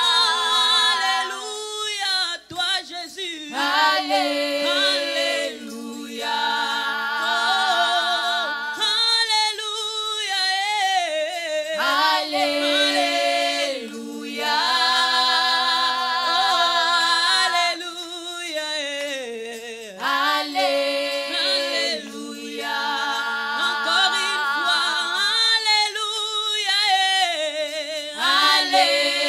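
Unaccompanied voices singing a worship song in long, drawn-out phrases with vibrato on the held notes.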